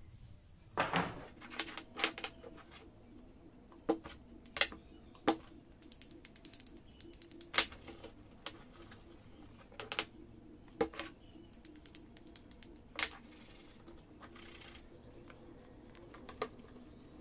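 Small wooden wedge segments of Kruing and Sungkai wood clacking as they are handled and set down against each other on a wooden tabletop: irregular sharp knocks, one every second or so, the loudest about halfway through.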